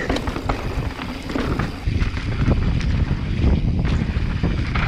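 Wind buffeting the microphone over a low rumble, with many short knocks and rattles from riding over a rough, rocky trail section.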